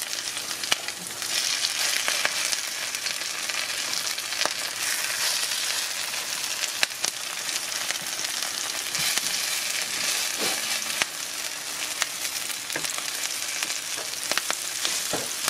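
Kale and yellow squash patties sizzling steadily in avocado oil in a frying pan over medium-low heat, with scattered clicks and scrapes of a spatula against the pan as they are turned.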